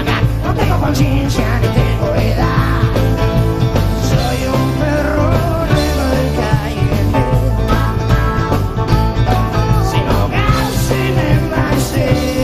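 Live blues-rock band playing: acoustic guitars strumming over bass and drums, with a harmonica.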